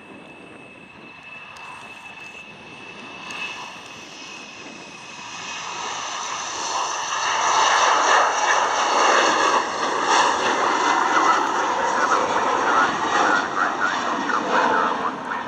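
Embraer E190's turbofan engines at takeoff power as the jet rolls down the runway, lifts off and climbs out. The jet noise with a steady high whine grows much louder over the first eight seconds and then stays loud.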